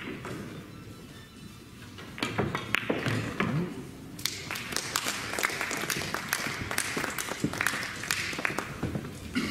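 Pool cue striking the cue ball and billiard balls clacking together about two seconds in, followed by audience applause: a dense run of irregular claps that carries on to the end.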